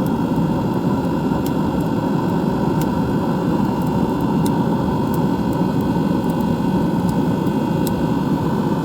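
Steady rushing roar of fire burning in a pellet smoker, with a few faint ticks.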